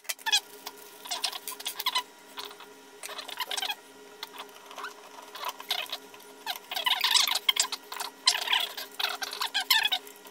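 Screws being driven by hand into the extruder head mount of a 3D printer: a run of short, irregular squeaks and clicks from the tool and screw threads, over a faint steady hum.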